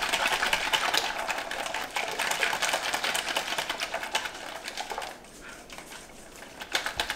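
A small hand whisk beating cream in a bowl: a fast, steady clatter of the wires against the bowl as the cream thickens toward soft peaks. It eases off about five seconds in and picks up again near the end.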